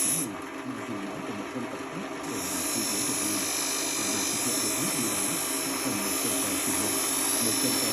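Small power tool running steadily with a continuous motor whine; a hiss in the highest range drops out for about two seconds just after the start, then returns.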